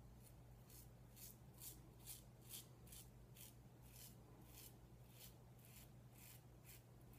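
Razorock Stealth Slant, a black aluminium slant-bar safety razor, scraping through lathered stubble on the chin and jaw in quick short strokes, about two or three a second, faint.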